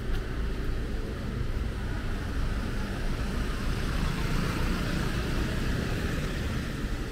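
City street traffic noise over a steady low rumble, with a vehicle passing and swelling louder about four to five seconds in.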